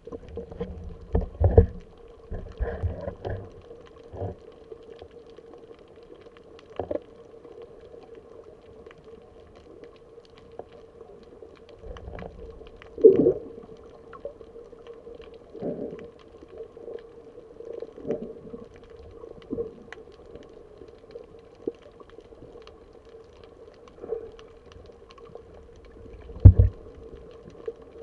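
Underwater sound muffled by an action camera's waterproof housing: a steady hum with irregular dull knocks and thumps from water movement and handling as the diver swims. The loudest thumps come about a second in, around halfway, and near the end.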